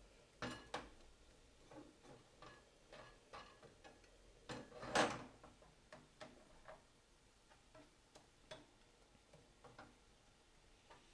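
Plastic spatula scraping and tapping around a non-stick frying pan as runny egg mixture is stirred: light irregular clicks, with one louder scrape about five seconds in.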